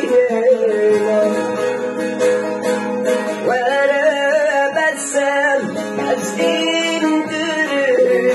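Music from a sad Kurdish song: plucked strings with a melody line that bends and wavers in pitch.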